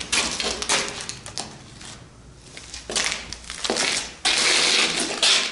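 Boots crunching and scraping over grit and debris on a concrete floor, in several drawn-out scuffs.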